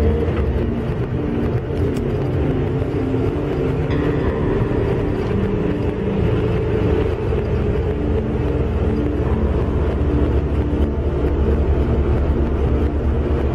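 Car driving along a paved road: steady low rumble of tyre, engine and wind noise, with no sudden events.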